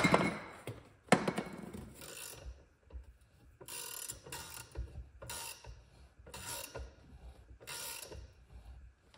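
Thread tap being turned by hand through metal, cutting and grating in short strokes about one a second, with two sharp knocks near the start. The tap is oiled while cutting.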